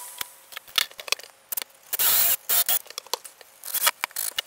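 Tool and handling noise as a storm door's metal hinge-side jamb is worked into place: a string of sharp clicks and knocks with a few short hissing bursts, the loudest about two seconds in.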